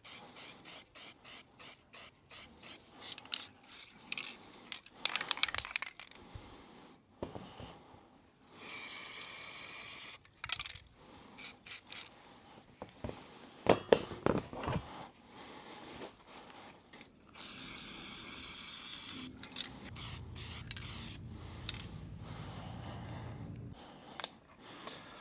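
Aerosol spray-paint can being shaken, its mixing ball rattling quickly and evenly, then sprayed in bursts of hiss, two of them about two seconds long, as a first coat goes onto a metal roof rack.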